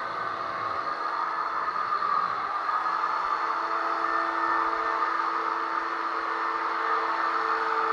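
Drywall being sanded: a steady whirring hiss, with faint tones that come and go.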